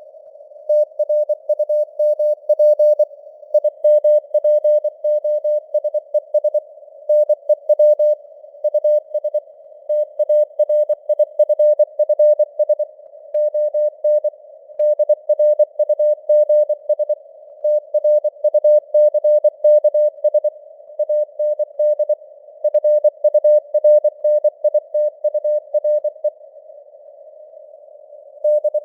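Morse code (CW) tone keyed in dots and dashes at 24 words per minute, spelling out news text. It sits in a narrow band of simulated radio hiss, and its strength rises and falls as in radio fading (QSB). The keying breaks off for about two seconds near the end.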